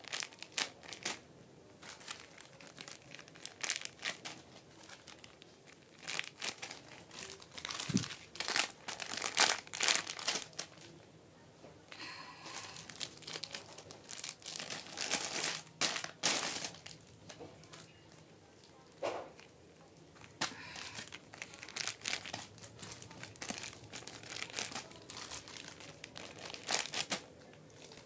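Plastic crinkling and rustling in irregular bursts, as of a bag or wrapper being handled.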